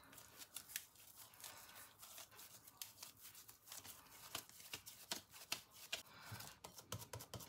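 Faint, irregular soft squishes and small clicks of hands kneading a slightly stiff flour dough against a glass bowl.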